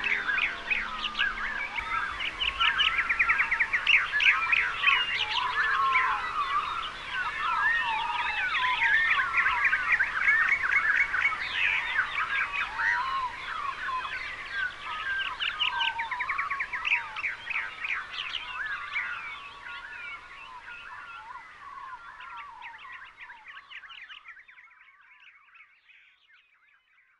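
A dense chorus of many wild birds singing at once, a dawn chorus of overlapping chirps, trills and whistles. It fades away over the last several seconds.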